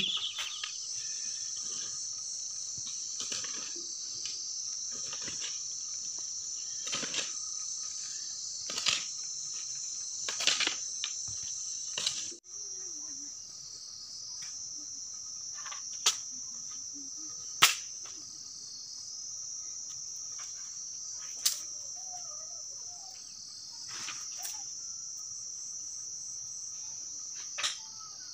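Steady high chirring of a cricket chorus, with sharp single knocks every few seconds from a hoe chopping into the soil.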